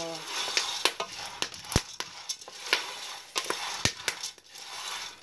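Dry corn kernels being roasted without oil in an aluminium pot and stirred with a wooden spoon: a rustling scrape of kernels against the metal, with a handful of sharp clicks as kernels crack in the heat or the spoon knocks the pot.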